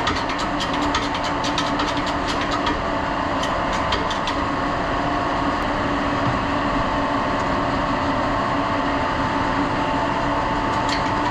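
Steady industrial machinery drone with a constant hum, the background of a printing-press room, with a quick run of light metallic clicks and rattles over the first four seconds or so and a couple more near the end.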